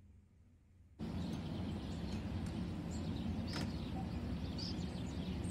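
Near silence for about a second, then outdoor ambience cuts in suddenly: a steady low background rumble with a few short bird chirps over it.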